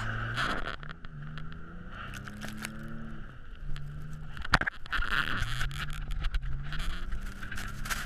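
Nissan Frontier pickup's V6 engine revving up and falling back again and again as the truck drifts with wheelspin on snow-covered lake ice. Bursts of rushing hiss come and go, and there is a single sharp knock about halfway through.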